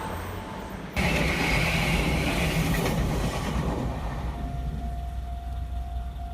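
Meitetsu electric train passing over a level crossing: a sudden rise about a second in to loud wheel and running noise on the rails, easing off after a few seconds. From about four seconds in, the crossing's warning bell rings in a steady repeated tone.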